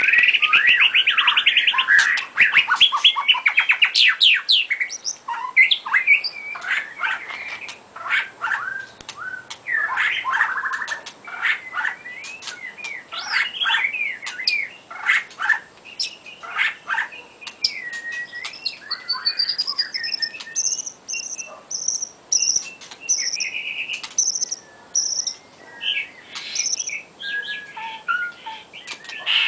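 White-rumped shama singing a long, varied song of fast trills, sliding whistles and sharp clicks, with a run of about eight short high notes repeated evenly past the middle.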